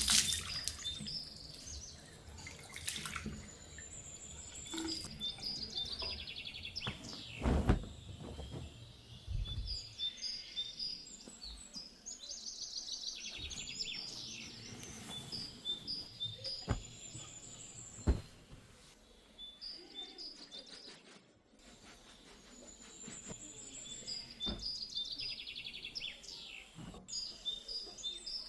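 Small birds chirping and trilling in high repeated phrases, with a few sharp knocks and clicks from handling, the loudest just before 8 seconds and at about 18 seconds.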